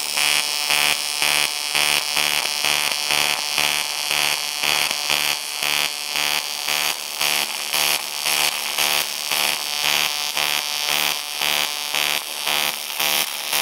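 TIG welding arc running on pulsed current, its buzz rising and falling evenly about twice a second as the machine switches between peak and background amps. It is a heavy setting, around 240 A, for fusing 5 mm plate to 3 mm.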